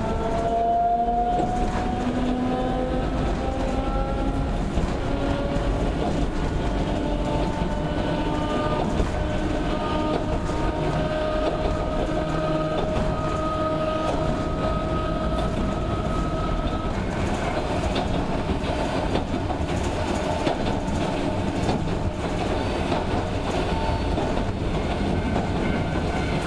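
Running sound of a Sangi Railway Hokusei Line 270-series narrow-gauge electric train, heard from aboard: a motor whine rising slowly in pitch as it accelerates, over the steady noise of wheels on the track. The whine levels off and fades about two-thirds of the way through, leaving the wheel and track noise.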